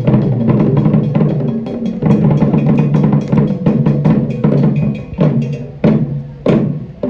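Music with busy, fast drumming over steady low tones; near the end the drumming thins to a few separate strikes.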